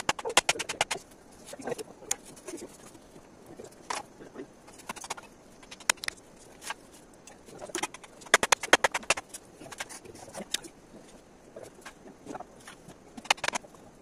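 Hammer striking bamboo fence posts, in quick runs of sharp taps with pauses between, the longest run a little past the middle.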